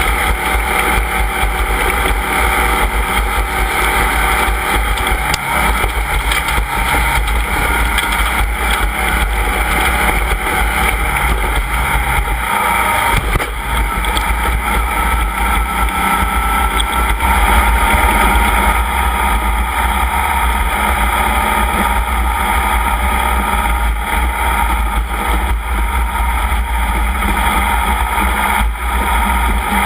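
Off-road race vehicle driving at a steady pace, its engine and running noise loud and nearly unchanging, with a brief dip about thirteen seconds in and a slight rise around eighteen seconds.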